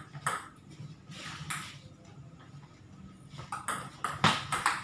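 Table tennis ball clicking off the paddles and bouncing on the table: a few scattered taps, a lull, then a quick rally of hits starting about three and a half seconds in, the loudest a little after four seconds.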